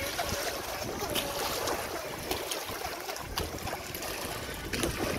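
Feilun FT012 brushless RC speedboat running at speed across choppy water, its motor whine faint beneath a steady wash of wind and lapping water.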